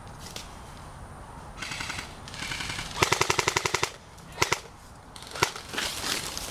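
Airsoft guns firing: quieter rapid fire, then a loud full-auto burst of about a dozen shots in a second, followed by a few single shots.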